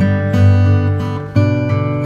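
Background music: strummed acoustic guitar, with a new strum about every half second to second.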